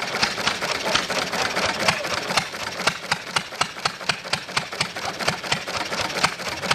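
Hit-and-miss stationary engine running, with sharp exhaust beats and clicks several times a second, slightly uneven in their spacing.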